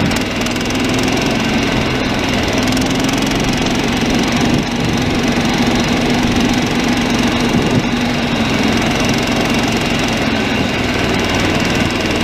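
SnowDog tracked snow machine's small gasoline engine running at a steady speed while it tows the sled along. The engine note holds one pitch throughout.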